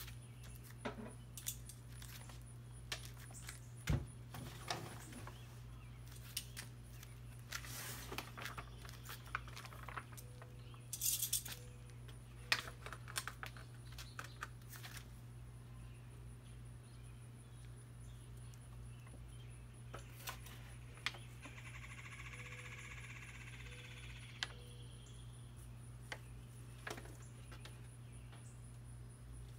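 Aluminium foil pans and the smoker's metal racks clicking and clattering as pans of food are slid into the cabinet, in scattered light knocks with a short flurry about eleven seconds in, over a steady low hum.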